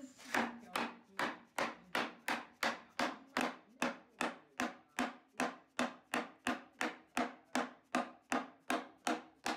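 Orange plastic mallet tapping a walnut case top down onto its hand-cut through dovetails. A steady run of sharp knocks on the wood, nearly three a second, seats the joint.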